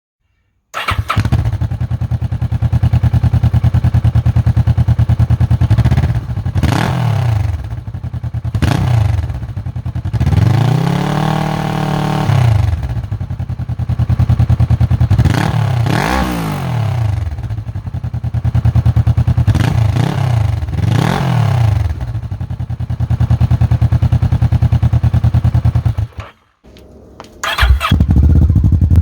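Kawasaki Versys 650 parallel-twin engine through an MIVV Storm aftermarket exhaust, starting up about a second in and idling, blipped several times in quick rising-and-falling revs, with one longer rev held for about two seconds. The sound cuts out briefly near the end and then returns at idle.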